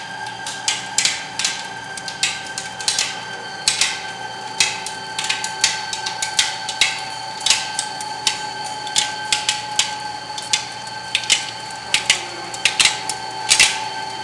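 Tee bar roll forming machine running, a steady whine from its drive with frequent irregular sharp metallic clicks as the steel strip passes through the forming rollers.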